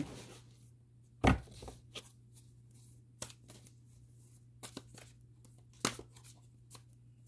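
Deck of tarot cards being handled and shuffled by hand: scattered soft card flicks and clicks, with one louder knock about a second in.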